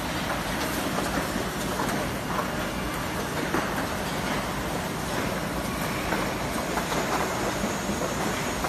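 Steady machinery noise with faint irregular clicks and light rattles, from an automatic soldering robot working and the production machinery around it.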